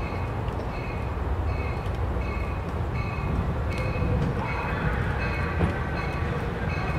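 Amtrak Pacific Surfliner passenger train rolling slowly into the station, its wheels and cars giving a steady low rumble. A bell dings steadily, about three strikes every two seconds. A higher whine joins the rumble about four seconds in as the train keeps moving.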